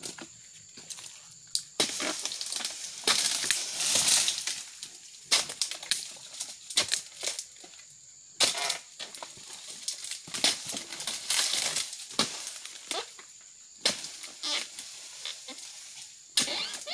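Pole-mounted pruning blade hacking at the bases of oil palm fronds: irregular chopping knocks with crackling and rustling from the dry fronds, in spells of several strokes.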